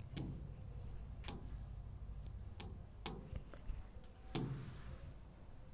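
Fingers tapping on an interactive smart board's touchscreen while working its menus: a handful of sharp taps at irregular intervals, over a low steady hum.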